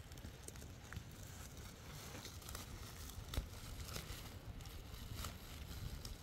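Woven plastic sacks rustling and crinkling as they are handled and threads are pulled from the frayed edge, with faint scattered ticks and one sharper click about three and a half seconds in.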